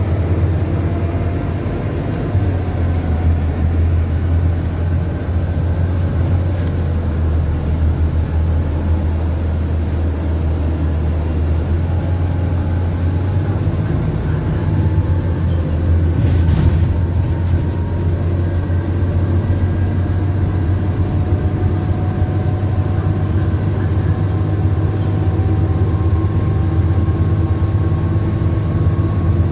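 Cabin sound of a Scania CityWide LF CNG city bus under way: a steady low drone from the gas engine and driveline, with faint whines that slowly rise in pitch as it gathers speed. A short hiss about halfway through.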